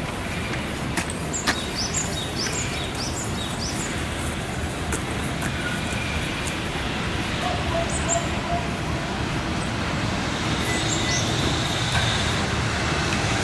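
Small birds chirping in quick runs of short rising notes over a low, steady rumble that slowly grows louder: a freight train drawing near.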